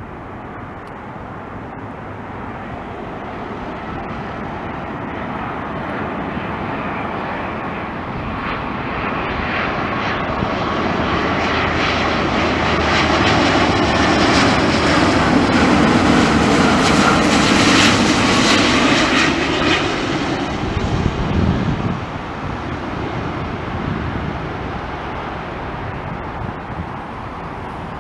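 British Airways Airbus A350-1000 on final approach, its Rolls-Royce Trent XWB engines passing low overhead. The jet noise swells steadily to a peak about two-thirds of the way through, then drops away.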